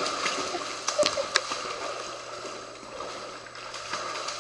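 Water sloshing and splashing in a dog swimming pool, with a few sharp splashes a second or so in.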